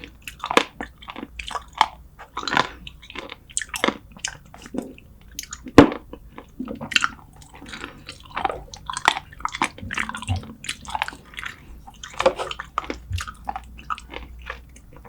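Close-up eating sounds of spicy Korean braised seafood: a person biting and chewing, with wet squishy and crunchy bites in an irregular run, and one sharper click about six seconds in.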